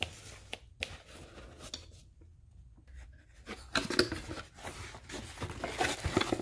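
Cardboard box being opened by hand: scattered taps and scrapes of the cardboard flaps, then from about four seconds in louder scraping and rustling as the flaps are folded back and the bubble-wrapped contents are handled.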